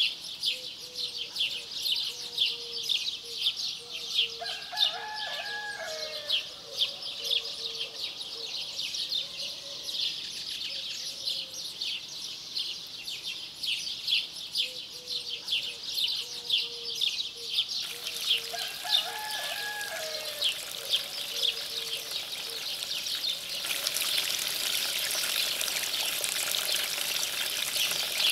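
Outdoor ambience of small birds chirping continuously in quick high notes, with a lower repeated call heard twice. A steady trickle of running water comes in about three-quarters of the way through and grows to a pouring rush.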